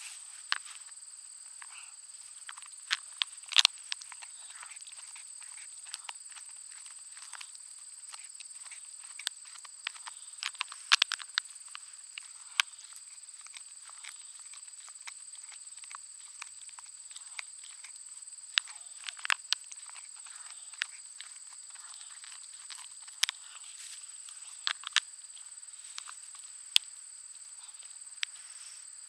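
Schnauzer-pug mix dog chewing a bone: irregular sharp cracks and crunches, sometimes several in quick succession. Behind them runs a steady high-pitched whine.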